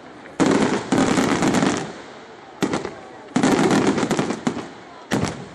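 Aerial firework shells bursting: volleys of sharp bangs and dense crackling, each about a second long, with brief quieter lulls between and a single bang near the end.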